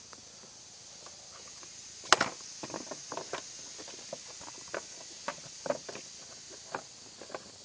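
Scattered light clicks and taps at an irregular pace, with one sharper knock about two seconds in, over a faint steady hiss.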